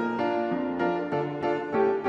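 Background piano music, notes changing a few times a second.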